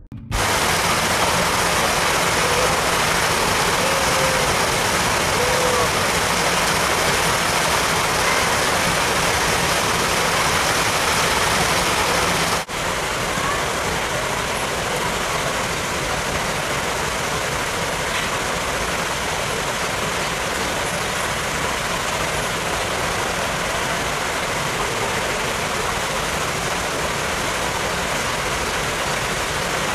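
Steady, loud rushing noise, like wind on the microphone or running water, with a brief break about twelve seconds in, after which it goes on a little quieter.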